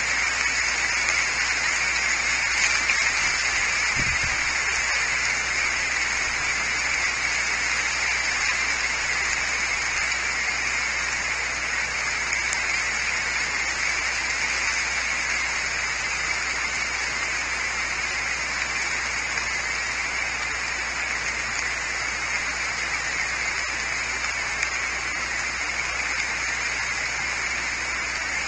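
Steady rain falling on dense leafy trees, an even hiss that holds unchanged throughout.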